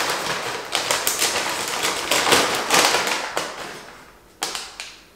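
Paper takeout bag crinkling and rustling as it is handled and opened, with a sharp tap about four and a half seconds in.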